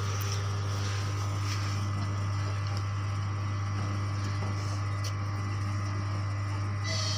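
Steady low engine drone of a TEP70 diesel locomotive approaching with a passenger train. A higher tone begins just before the end.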